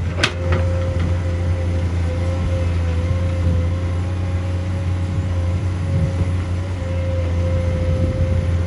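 Heavy diesel machinery running steadily: a deep engine drone with a steady whine above it, and one sharp metallic knock just after the start.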